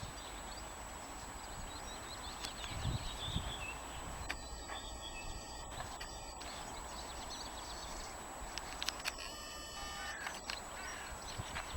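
Quiet outdoor ambience with small birds chirping now and then over a steady background noise.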